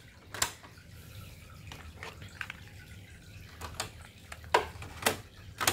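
A string of separate plastic clicks and knocks from the cassette deck of a Sharp GF-777E radio cassette player as it is handled and a cassette tape is taken up to be loaded.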